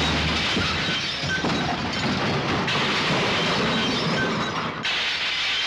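Cartoon sound effect of window glass shattering: a dense, loud crashing and breaking din that goes on for several seconds in a few waves.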